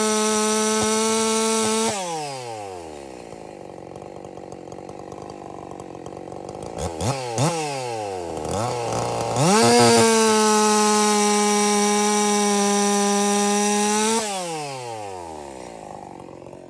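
Husqvarna 346 XP two-stroke chainsaw revved to full throttle and released. It runs high and steady, drops to idle about 2 s in, takes a few quick throttle blips near the middle, revs back up to full speed for about four seconds, then winds down to idle near the end.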